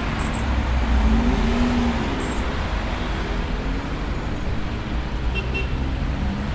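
Busy city street traffic: a steady rumble of passing cars and other vehicles, with engine notes rising and falling as they pull away and go by.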